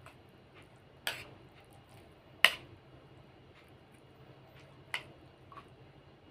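A metal spoon clinking and scraping against a plastic plate of rice and noodles: a few sharp clinks spaced a second or more apart, the loudest about two and a half seconds in.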